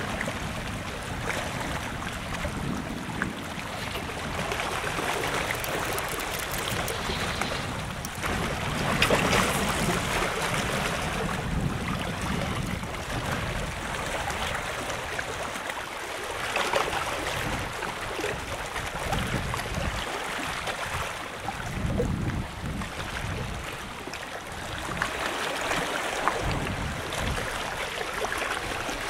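Seawater sloshing and washing against a concrete seawall, swelling in surges every several seconds, with wind rumbling on the microphone.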